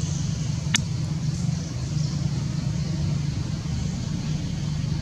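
Steady low rumble of background noise with a faint high hiss over it, and one sharp click about three quarters of a second in.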